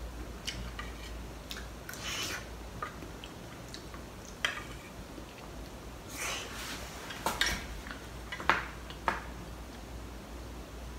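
A metal spoon clinking and scraping against a ceramic plate while someone eats pudding from it: a handful of short clinks and scrapes with quiet gaps between them.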